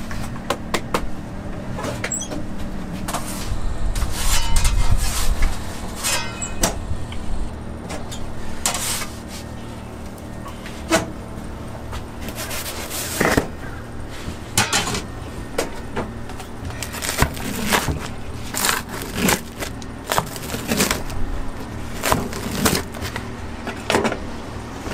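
Clatter of pizza handling: a metal pizza peel knocking and scraping, with sharp clicks and knocks throughout over a steady low hum. A louder low rumble comes about four seconds in.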